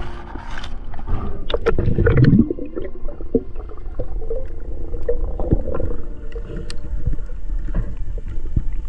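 Muffled underwater sound from a submerged microphone: water gurgling and rushing, with scattered knocks and clicks, most of them in the first couple of seconds.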